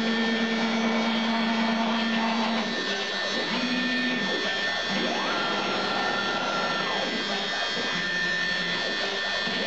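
Homemade gantry CNC router running with a steady whirring motor noise, over which its stepper motors sing in pitched tones as the gantry moves. There is a low tone for the first couple of seconds and a short one near four seconds; about five seconds in the pitch glides up to a higher held tone and glides back down near seven seconds as the axis speeds up, travels and slows.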